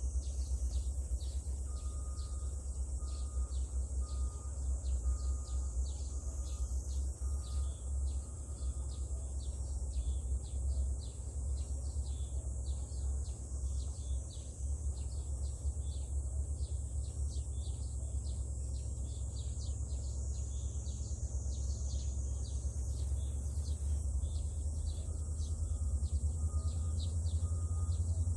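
Summer field ambience: insects droning in a steady high hiss, with a short chirp repeated evenly about once a second early on and again near the end. A steady low rumble runs underneath and swells slightly near the end.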